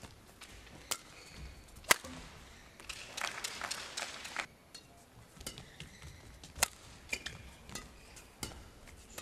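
Badminton racket strokes on a shuttlecock: a series of sharp, separate cracks, the loudest about two seconds in, with a short stretch of softer hazy noise from court and hall in the middle.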